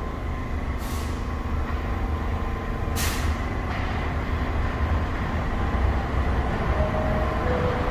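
A New York City subway train approaching through the tunnel, a low rumble that slowly grows louder. Two short, sharp hisses come about one and three seconds in.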